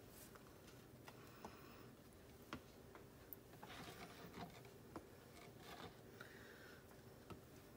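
Near silence with a few faint scattered ticks and soft rustles: cherry tomatoes being handled and set down on a ceramic plate.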